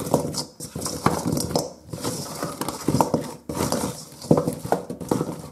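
Frozen chicken wings stirred and tossed with a silicone spurtle in a stainless steel mixing bowl: irregular clunks and scrapes of the wings against the steel, stopping suddenly near the end.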